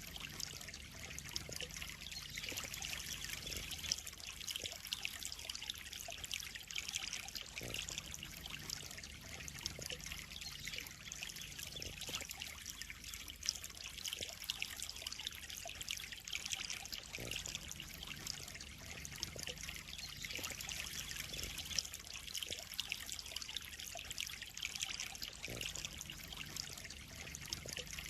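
Water trickling and splashing steadily into a koi pond, a continuous bright hiss of falling water.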